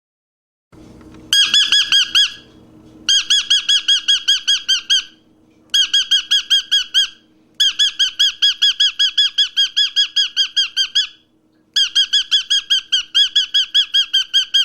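Parrot giving rapid, repeated squawks, about seven a second, in bursts of one to three seconds with short breaks between.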